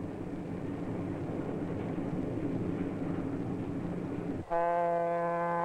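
Steady rumble of a passenger train running, then about four and a half seconds in a diesel-electric locomotive's air horn sounds one long, steady blast.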